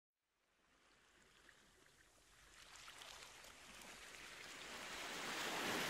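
Small sea waves washing onto a sandy beach, fading in and swelling to the loudest wash near the end, with a fine fizzing crackle.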